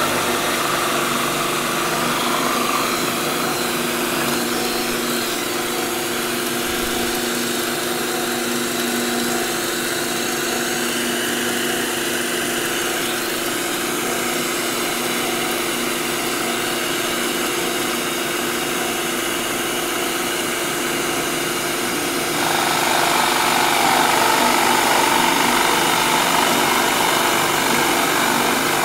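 Drill press and shop vacuum running together, a steady hum over an even rushing noise. About three-quarters of the way through the sound gets louder and fuller.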